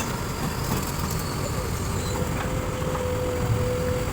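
Kobelco SK200 excavator's diesel engine running steadily, with a steady whine joining in about halfway through.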